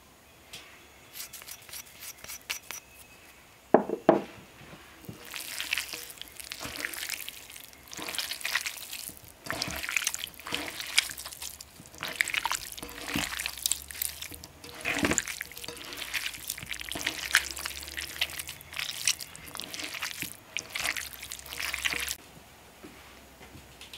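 Raw minced beef being mixed by hand in an earthenware bowl: wet squelching and squishing in irregular repeated bursts that stop suddenly near the end. Before it, faint ticks of salt being sprinkled in and a single knock about four seconds in.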